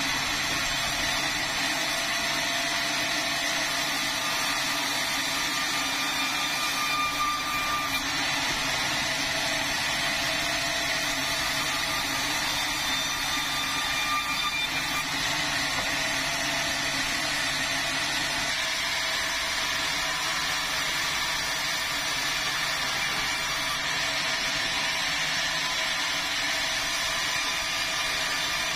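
Power saw running steadily as it cuts through a red meranti log, with a constant pitch throughout.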